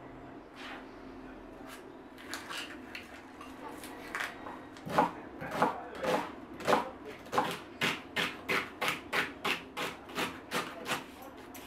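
Kitchen knife chopping onion and celery on a wooden cutting board. A few light cuts come first, then from about halfway a steady run of knife strikes on the board, quickening from about two to about three a second and stopping shortly before the end.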